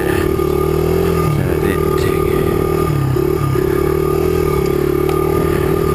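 Small single-cylinder four-stroke engine of a 2005 Honda 100 cc trail bike, ridden at steady throttle. Its pitch dips briefly twice.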